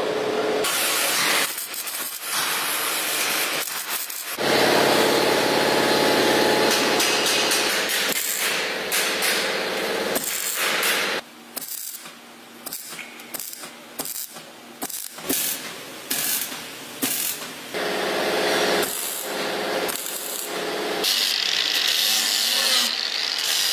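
MIG welder crackling as a replacement chassis section is welded to the steel body, in start-stop runs that are longer at first and turn into rapid short tack bursts in the middle. Near the end an angle grinder runs on the weld with a steady high whine.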